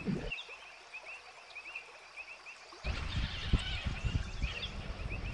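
A small animal chirping steadily, about four short high chirps a second. A louder rumble and hiss come in about three seconds in.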